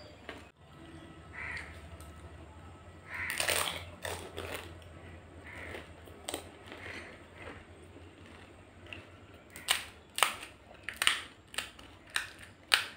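Eating fuchka (pani puri): crisp fried puri shells crunching while chewing a mouthful, then a quick run of about six sharp cracks as the brittle shells are poked open with the fingers, the loudest crack near the end.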